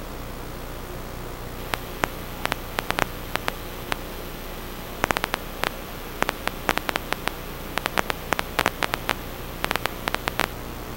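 Steady static hiss with a low electrical hum, broken by many short sharp clicks, singly and in quick clusters, from about two seconds in until near the end.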